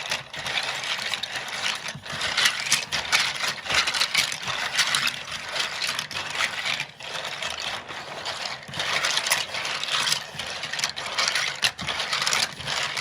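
Plastic keyboard keycaps being stirred by hand in a bowl of soapy water: a continuous clatter of caps knocking together as they swish around, rising and falling in level.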